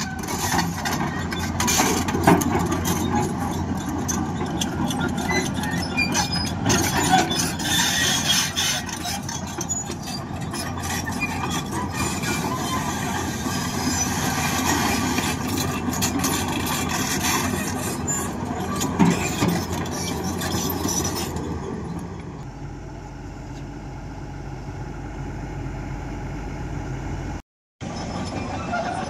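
Heavy construction machinery at work: engines running with frequent clanks and knocks. About three quarters of the way through it cuts to a quieter, steadier engine sound, broken by a brief dropout near the end.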